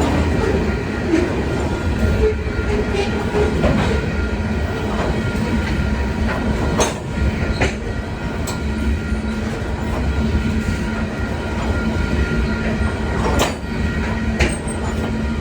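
Train rolling past with a steady low rumble and occasional sharp clacks of its wheels over rail joints.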